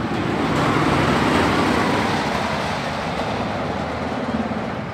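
Wooden roller coaster train rumbling on its track, a dense noise that swells in the first second or so and then slowly fades.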